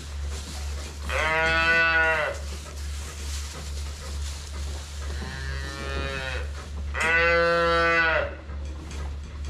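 Young calves bawling: three drawn-out calls of about a second each, the middle one fainter, over a steady low hum.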